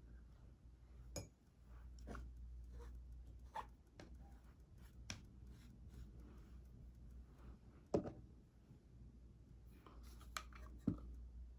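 Faint clicks and taps of makeup containers and tools being handled, over a low steady hum. The loudest taps come about eight seconds in and again near the end.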